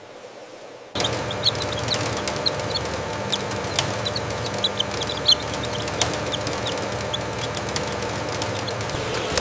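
A mass of newly hatched chicks peeping, many short high chirps over a steady hum, starting suddenly about a second in.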